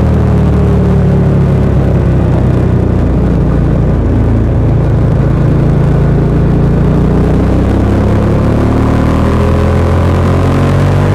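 Bajaj Dominar 400's single-cylinder engine running through its stock exhaust while the bike is ridden. The pitch eases down over the first couple of seconds, holds, then climbs again in the second half as the revs pick up.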